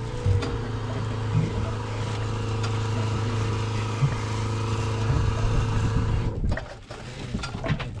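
Small electric water pump humming steadily while water runs from the boat's sink tap, cutting off about six and a half seconds in.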